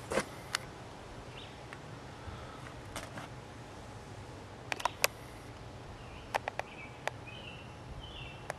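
Outdoor background hum with scattered sharp clicks and taps, a cluster of them about five seconds in, and a few short bird chirps in the second half.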